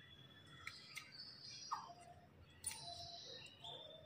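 Faint bird chirps: a few short calls at different pitches. Light clicks come from a plastic phone clamp on a selfie stick being handled.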